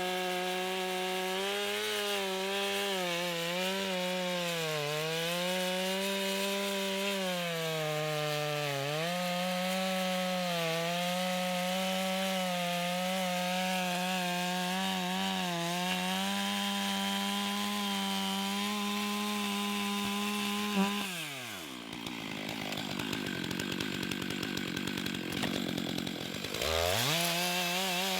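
Stihl 661 two-stroke chainsaw at full throttle, cutting through a large log, its pitch sagging and recovering as the chain loads up in the wood. About three quarters of the way in, the throttle is let off and the engine drops to idle. Near the end it revs back up to full speed.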